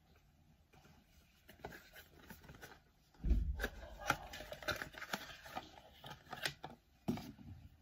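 A cardboard box being opened by hand and a beer glass taken out: rustling, scraping and clicks of handling, with a dull thump about three seconds in and a knock near the end.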